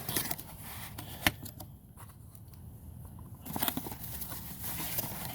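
A cardboard box being opened and its packaging handled: a few sharp clicks and knocks, the loudest about a second in, then crackly rustling and crinkling from a little past halfway.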